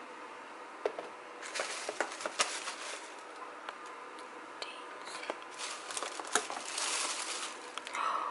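Plastic bag rustling and crinkling, with clicks and taps of plastic food containers being handled, in two stretches of crinkling a few seconds apart.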